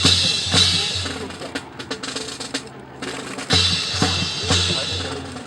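Rifle drill by a squad: sharp impacts in unison, rifles slapped and butts or boots striking the ground, in two runs of about four evenly spaced strikes, roughly two a second, each with a low thud.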